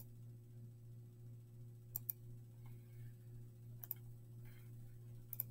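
Faint single clicks of a computer's pointer button, about one every two seconds, with a quick double click near the end, over a low steady hum.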